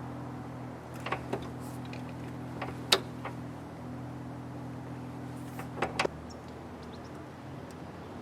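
Several sharp metallic clicks and knocks from hand tools working on a car's rear axle mount, over a steady low hum that drops slightly about six seconds in.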